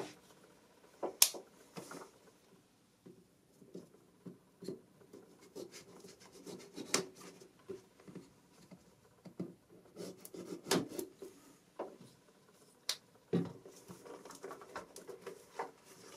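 A small cardboard retail box being handled on a desk and its seal cut with a knife: soft scraping and scratching of cardboard, with scattered sharp clicks and taps, the sharpest about a second in, around seven seconds and around thirteen seconds.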